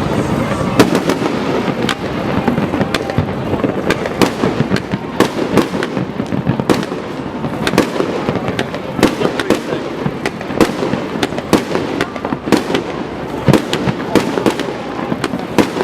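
A fireworks display: a dense, continuous string of bangs and crackling, with sharp reports following one another several times a second.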